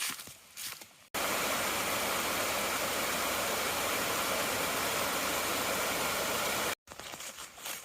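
Footsteps on a trail, then an abrupt cut to a loud, steady hiss lasting about five and a half seconds that stops just as suddenly, then footsteps again.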